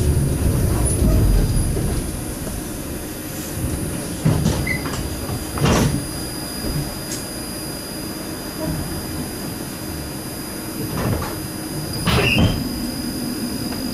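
Tram rumbling as it slows, then standing with a steady hum, broken by a few short knocks and clunks.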